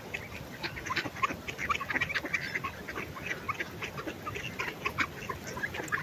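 A flock of mallards feeding on scattered grain off gravel: soft quacking among many quick, irregular little clicks and taps.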